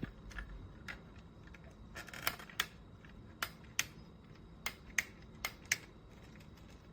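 A series of about nine sharp clicks, mostly in close pairs about a third of a second apart, over a faint low hum.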